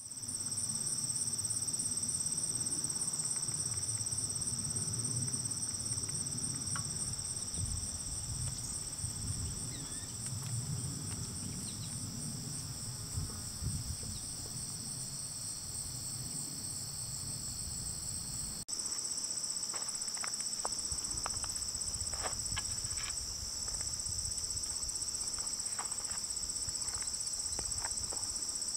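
Steady, high-pitched trilling chorus of late-summer insects, unbroken throughout. A low rumble sits under it for the first two-thirds and stops abruptly about two-thirds through, where faint short ticks begin to appear.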